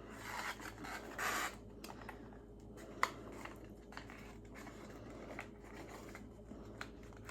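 Paper cup handled while string is threaded through small holes in its side: two brief rustling scrapes early, a sharp tap about three seconds in, then faint scattered ticks.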